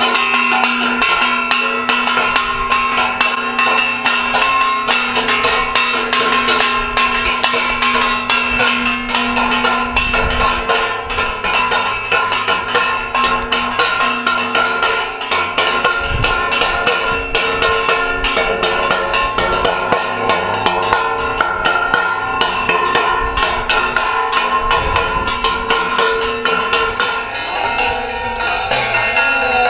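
Devotional music with fast metallic percussion, struck several times a second, over steady held tones.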